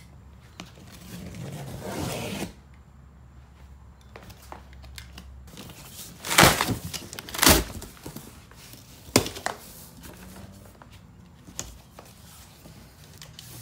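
Large cardboard shipping box being opened by hand: cardboard and tape tearing and flaps scraping, with two loud rips about six and seven and a half seconds in and a sharp knock near nine seconds.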